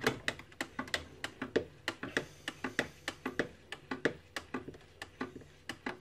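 A spatula stirring soda crystals into water in a plastic bucket, knocking and scraping against the bucket in quick irregular clicks, about five a second, as the washing-soda electrolyte is mixed.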